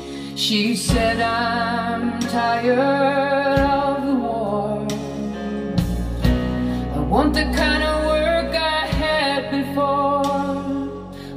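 Recorded vocal music played back through a hi-fi system driven by AGD Production Audion monoblock amplifiers and floor-standing speakers. A singer holds notes with vibrato over bass and an accompanying instrument.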